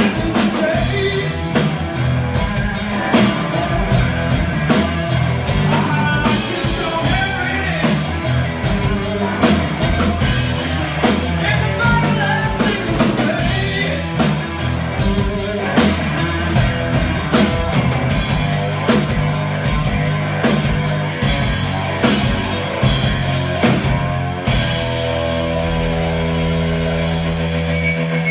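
Live blues-rock trio playing electric guitar, electric bass and drum kit. About four seconds before the end the drum hits stop and a held chord rings on.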